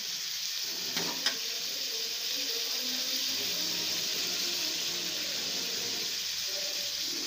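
Prawns frying in hot oil in a pan: a steady sizzle, with two sharp clicks about a second in.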